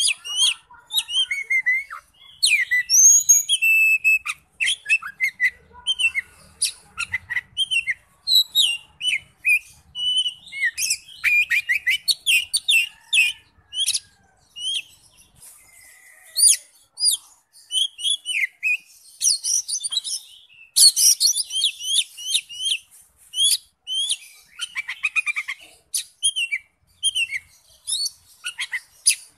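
Oriental magpie-robin singing a long, varied song of clear whistles, chirps and slurred notes. It opens with a quick run of repeated notes, goes quieter around the middle, and has runs of fast trilling about two-thirds of the way through.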